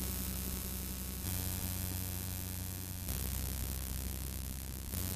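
Steady hiss with a low electrical hum, recording noise with no other sound; the hum's make-up shifts abruptly about three times.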